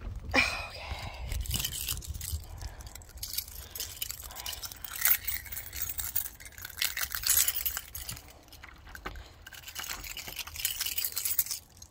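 A ring of metal keys jangling and clinking as keys are handled and tried in a deadbolt lock, with many small irregular clinks over a low rumble.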